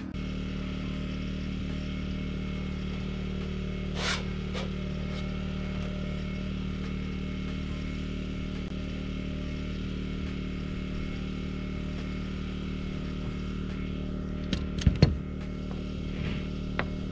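A steady machine drone runs throughout from the equipment powering a pneumatic framing nailer. Near the end the nailer gives a quick cluster of loud, sharp bangs, then a few lighter clicks, as it is handled and reloaded with nails.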